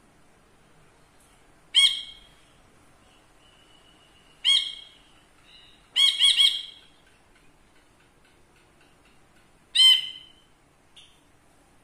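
A caged brinji kelabu bulbul calling: short, loud, sharp notes a few seconds apart, with a quick run of three about six seconds in.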